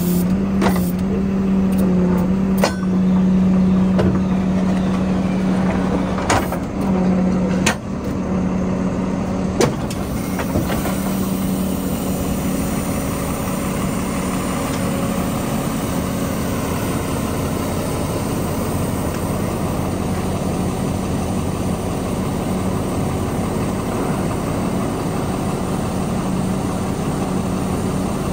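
Service truck's inline-six engine running with the PTO engaged, driving the hydraulics that work the outriggers and crane boom: a steady hum and drone. Several sharp clacks come in the first ten seconds, then the running sound holds steady.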